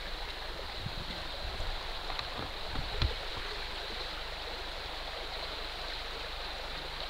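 Steady rush of a woodland stream flowing, with a few dull knocks in the first three seconds, the loudest about three seconds in.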